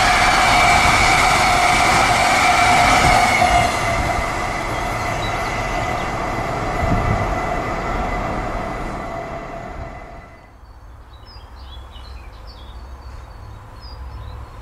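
Container wagons of a freight train rolling past on the rails, with steady high-pitched ringing from the wheels, fading as the last wagons go by. About ten seconds in, this gives way to quiet trackside with faint bird chirps.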